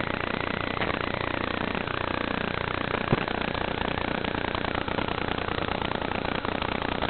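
Raw, unprocessed audio from FPV goggles' DVR during a quadcopter flight: a steady harsh rush of noise with faint sliding pitches in it, and one sharp click about three seconds in.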